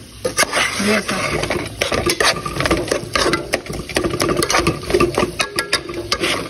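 A cooking utensil stirring ground beef in a pot, scraping and knocking against the pot in a quick, irregular run of strokes.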